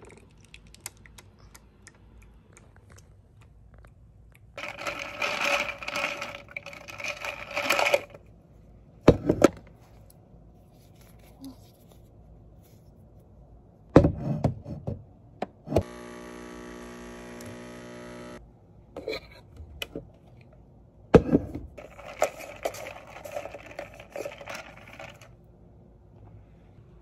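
A Nespresso-type capsule coffee machine in use: several sharp knocks and clunks, and a steady buzzing hum from the machine lasting about two and a half seconds in the middle. There are also two stretches of rattling noise, one early and one late.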